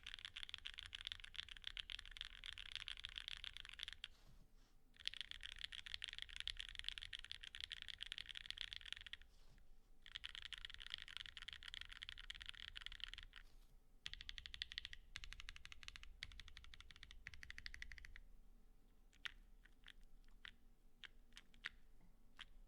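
Typing on a Geonworks F1-8X custom mechanical keyboard with lubed, filmed Banana Split linear switches, an aluminium leaf-spring plate and GMK keycaps. It comes in four runs of fast, dense keystrokes with short pauses between them, then slower, separate keystrokes near the end.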